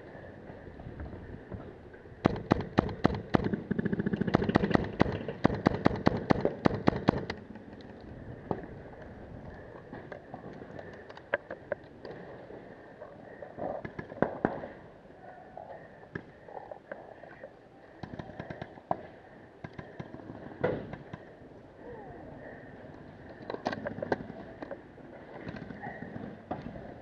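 Paintball markers firing: a quick string of sharp shots for about five seconds, several a second, then scattered single shots and short bursts.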